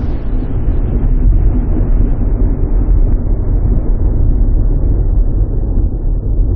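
A deep, steady rumble sound effect under an animated production title card, growing gradually duller as its high end fades away.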